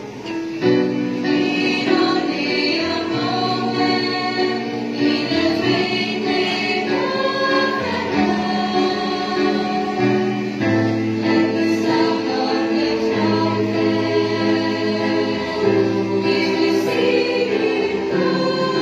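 A mixed choir of young voices singing a hymn in harmony, coming in about half a second in and holding chords.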